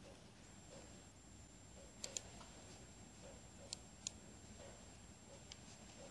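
Computer mouse buttons clicking: two quick double clicks, about two seconds in and again near four seconds, with a single fainter click later, over a faint steady high whine.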